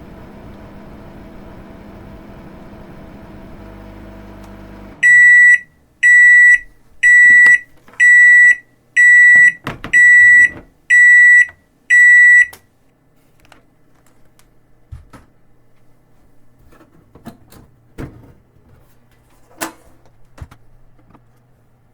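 Microwave-oven sound played by a computer: the steady hum of the oven running stops abruptly about five seconds in, followed by eight loud, high beeps about one a second, the end-of-cycle signal. After the beeps, only faint scattered clicks.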